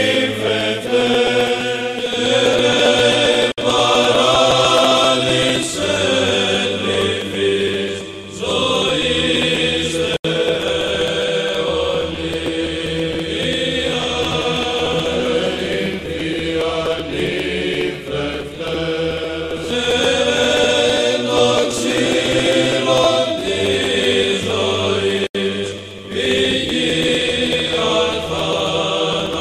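Background music: Byzantine-style chanting, a sung melody carried over a low held drone note.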